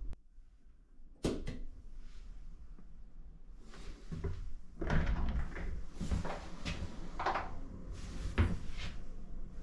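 A door being handled and opened: a sharp knock about a second in, then a series of irregular clunks and rubbing sounds in the second half.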